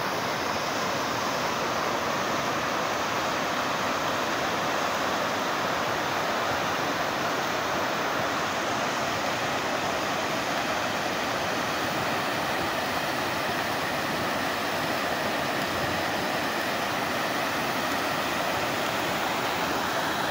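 A flood-swollen river of muddy water rushing steadily under and around a small concrete bridge after heavy rain.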